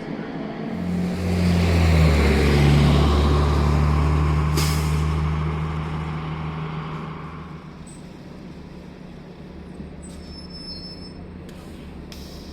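City bus engine passing close by, swelling and then fading away, with one short sharp hiss of its air brakes about halfway through.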